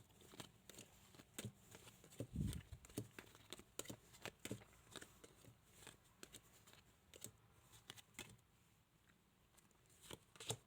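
Playing cards being dealt by hand onto a table: faint, irregular light snaps and taps, with a soft low thump about two and a half seconds in.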